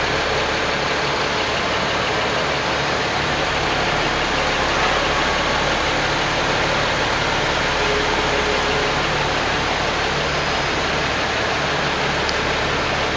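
BMW 135i's N55 turbocharged straight-six idling steadily.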